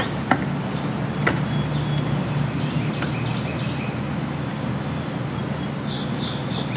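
Steady low background hum with three light clicks of a screwdriver being handled against metal parts, spaced about a second or more apart; faint high chirps near the end.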